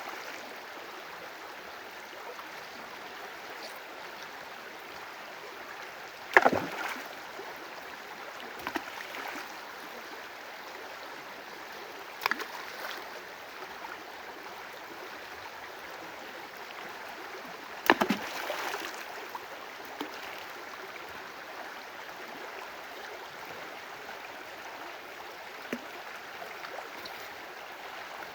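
Steady rush of moving water, broken by a few sharp splashes several seconds apart; the loudest come about six and eighteen seconds in.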